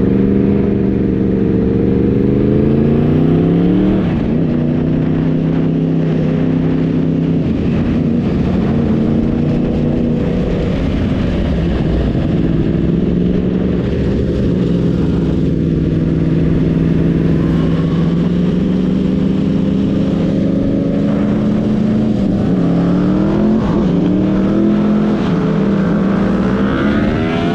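Sport motorcycle engine accelerating, its note rising for about four seconds to a gear change, then running at a steady pitch at cruising speed before climbing again near the end. Wind rushes over the microphone throughout.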